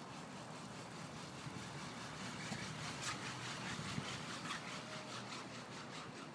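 Steady running noise of a chairlift ride, with faint clicking and rattling about halfway through.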